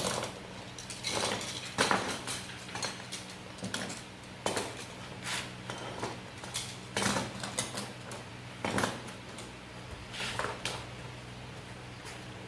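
Irregular light metallic clinks and clatters, about a dozen spread unevenly, of metal parts and tools being handled, over a steady low hum.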